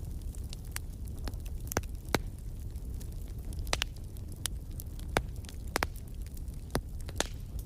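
Wood fire crackling in a fireplace: irregular sharp pops and snaps, a dozen or so, over a steady low rumble of the flames.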